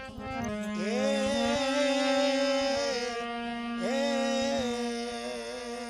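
Music of a Rajasthani devotional bhajan between sung lines: a melody line slides up into long held notes twice over a steady drone.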